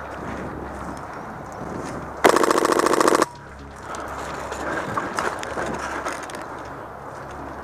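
HPA-powered F2000 airsoft rifle firing one full-auto burst of about a second, a rapid run of shots about two seconds in. Around it, footsteps and rustling in dry leaf litter as the player moves.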